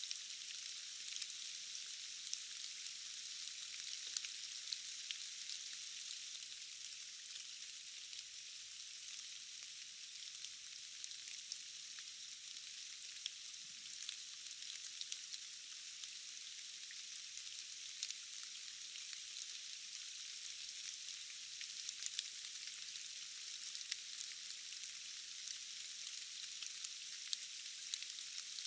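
Steady rain falling in a forest: an even, thin hiss with no low rumble, dotted with many sharp ticks of single drops.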